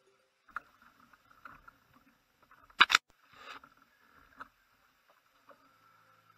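Gear being handled aboard a plastic sit-on-top kayak: scattered small knocks and rustles, with a loud double knock near the middle.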